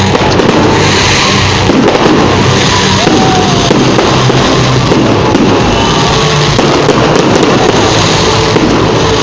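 New Year's fireworks going off in a dense, continuous barrage of crackles and bangs, loud throughout, with music playing underneath.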